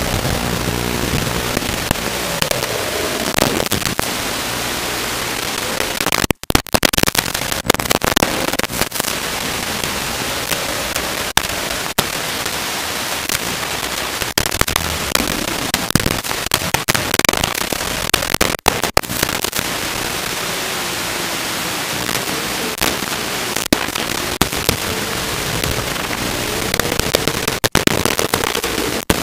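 Static on an analog FPV video link's audio: a steady hiss with crackles and a few brief dropouts where the signal cuts out, with faint tones gliding up and down in pitch underneath.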